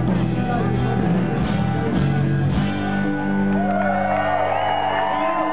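Live rock band with amplified electric guitar playing, then holding one long chord from about halfway through. Crowd whoops and cheers rise over the held chord near the end.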